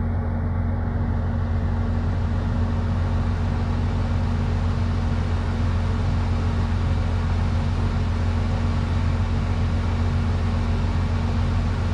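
Large diesel truck engine running steadily at a constant speed, a low, even drone.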